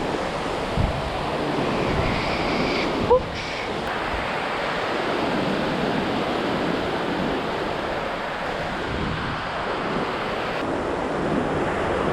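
Sea waves washing in, with wind on the microphone. There is a short sharp knock about three seconds in.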